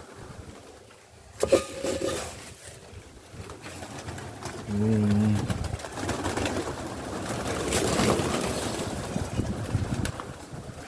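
A large flock of feral pigeons crowding in to feed, wings flapping and birds cooing, busiest in the second half. A single sharp knock comes about a second and a half in.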